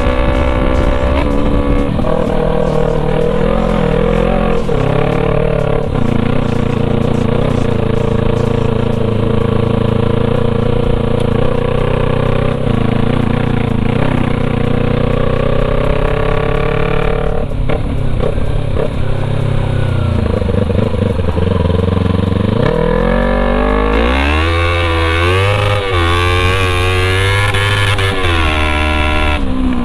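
Kawasaki Versys parallel-twin engine running straight-piped, with the muffler removed and only the bare header pipe left, very loud as the motorcycle is ridden under way. The engine note holds through the gears, drops sharply twice past the middle, then rises and falls quickly several times near the end as the throttle is worked.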